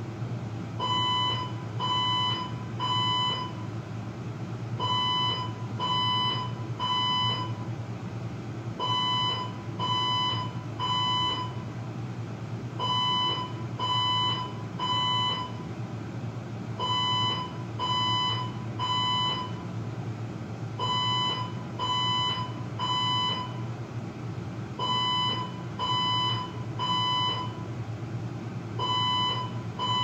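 Building fire alarm sounding the temporal-three evacuation pattern: groups of three loud, high electronic beeps about a second apart, each group followed by a short pause, repeating steadily. A steady low hum runs underneath.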